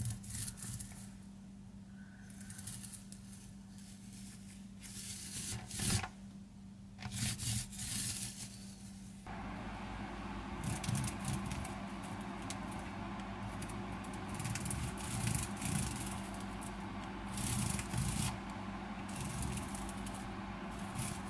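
Small paint roller being rolled over a mosaic tile wall with tile paint: irregular rubbing and scraping strokes. A low steady hum sits underneath and gets louder about nine seconds in.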